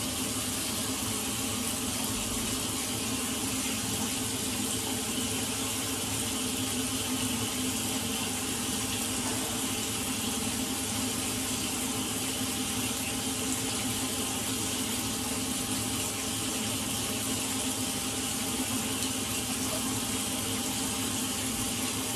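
Tap water running steadily into a sink while a face is washed with cleansing foam.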